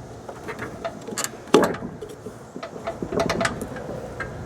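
Rubber drive belt being worked by hand around a riding mower's deck pulley: scattered clicks, knocks and rustling, with one sharper knock about a second and a half in.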